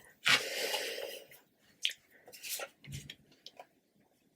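Tarot cards being handled: a brief rustling swish near the start as a card slides off the deck, then a few soft clicks and taps, with a dull knock about three seconds in.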